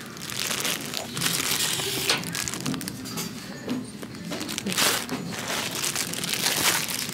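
Thin clear plastic bag crinkling as it is handled close by, in irregular rustles with louder surges about a second in and again near five seconds.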